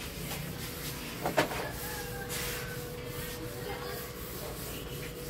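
A paper tissue rubbing in repeated wiping strokes over the glass surface of an LCD panel, with a brief louder knock about a second and a half in. A faint steady hum runs under it from shortly after that.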